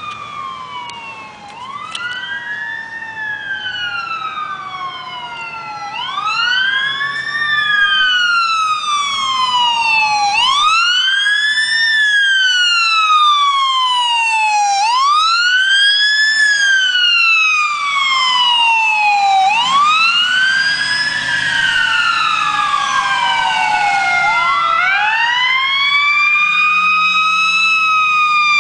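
Wailing sirens of an ambulance and a fire engine responding to a call, two sirens overlapping. Each cycle rises for about a second and a half and falls slowly, repeating every four to five seconds. The sirens get louder about six seconds in and stay loud as the vehicles come close.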